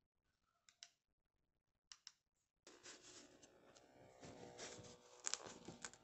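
Handling of an opened wrist blood pressure monitor: a few faint plastic clicks, then from about halfway rustling and sharper clicks as the cuff is fitted onto the wrist.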